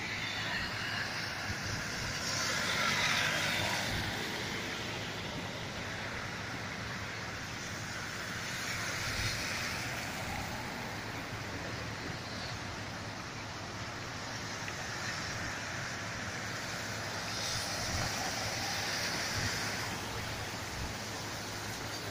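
Floodwater swishing and sloshing against a vehicle wading slowly along a flooded street, rising in slow swells, over a steady low engine hum.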